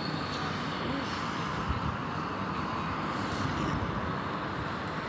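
Steady outdoor rushing noise of wind and distant city traffic during a sandstorm.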